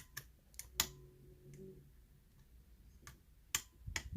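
Scattered sharp clicks of a lock pick working the pin stack of a challenge lock during single-pin picking. The clicks are irregular, with a cluster in the first second and more just after three seconds.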